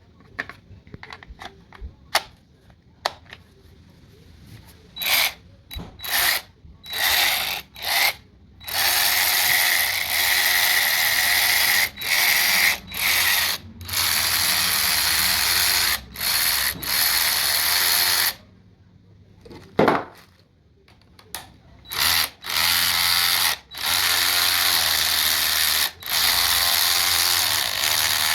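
Cordless electric ratchet's motor and gear head running in repeated trigger pulls: a few light clicks of handling first, then short bursts, then runs of one to three seconds with brief stops and one longer pause past the middle.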